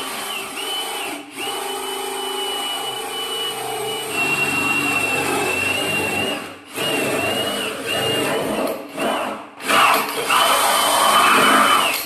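Power drill with a spade bit boring the latch hole through the edge of a plywood door: a steady high motor whine over the rasp of the bit cutting wood. The drill stops briefly about a second in, again around six and a half seconds, and twice more between eight and ten seconds, and its last run near the end is the loudest.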